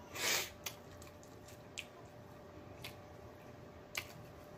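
Close-miked mouth sounds of eating fried chicken: a short, loud noise just after the start, then four sharp smacking clicks about a second apart.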